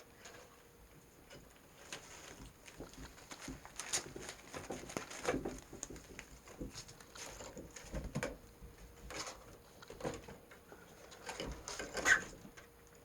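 Several kittens romping and play-fighting: a busy, irregular run of light patters, scrabbles and thumps, ending in one sharp knock near the end.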